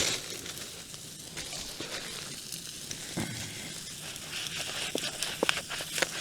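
Steak sizzling on a Firebox gas grill as a steady hiss, with a few light clicks and taps from handling near the end.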